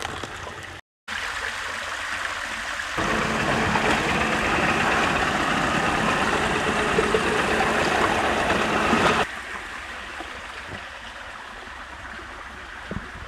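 Shallow creek water running and trickling over rocks. For several seconds in the middle it is much louder, where the water spills over a small rock ledge.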